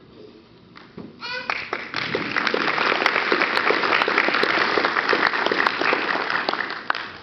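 An audience applauding. The clapping starts about a second in, swells quickly into dense applause, then dies away near the end.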